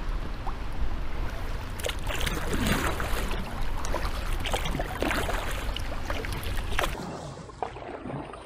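Kayak paddle strokes splashing and dripping in the water, with a run of splashes in the middle. Under them runs a steady low rumble that drops away about seven seconds in.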